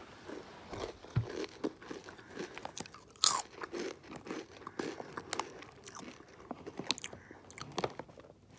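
A person chewing Takis Blue Heat rolled tortilla chips close to the microphone: a run of irregular crunches, with one sharper, louder crunch about three seconds in.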